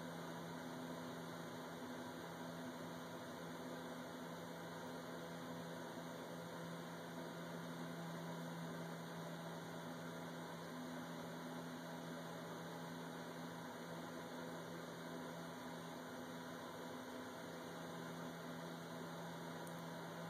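Steady background hiss with a low, even hum, unchanging throughout, with no distinct sounds standing out.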